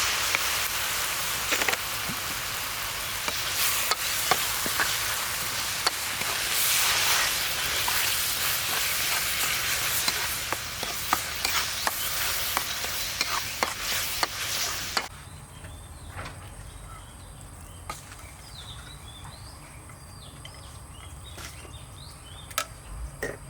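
Food frying and sizzling in hot oil in a pan, with sharp clicks of a utensil stirring. About fifteen seconds in the sizzle cuts off abruptly to a much quieter background of birds chirping and a steady high insect whine.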